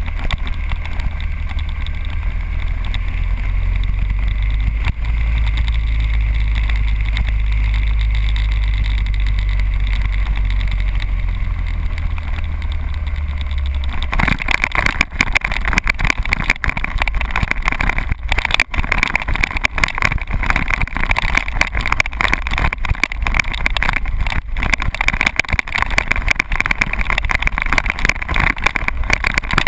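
Motorcycle riding along a road with a steady low wind rumble on the microphone. About halfway through it slows onto gravel, and the sound turns rough and crackly: the engine heard more plainly, with many small clicks of gravel under the tyres.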